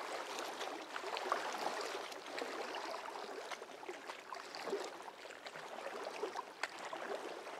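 Faint ambience of moving water: a soft, steady rushing with small scattered ticks.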